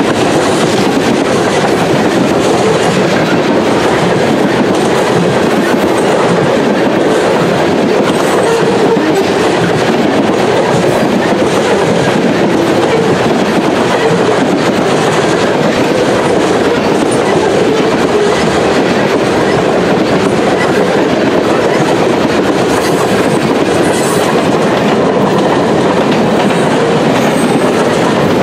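Freight cars (tank cars and covered hoppers) of a long mixed train rolling past close by: a loud, steady rumble and clatter of steel wheels on the rails.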